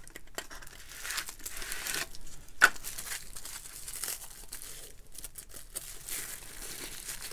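Cardboard box being opened and a bubble-wrap pouch crinkling and rustling as it is pulled out and turned in the hands, with one sharp click about two and a half seconds in.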